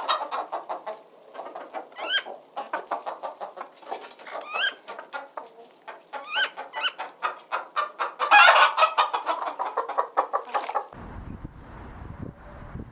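Chickens clucking in quick runs, with a louder burst of calls about eight and a half seconds in. Near eleven seconds the sound cuts abruptly to a low rumbling noise.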